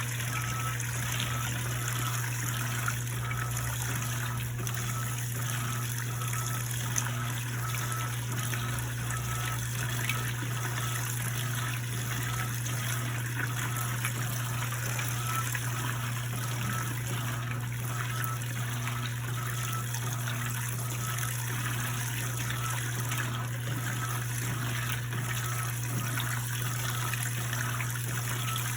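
Electrolux washing machine with water running and trickling inside it, over a steady low hum.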